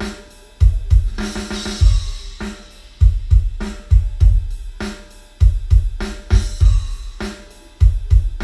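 Drum-heavy music played through a Yamaha NS-SW700 subwoofer as a bass test. Deep kick-drum thumps come in a phrase that repeats about every two and a half seconds, with cymbals and hi-hat above them.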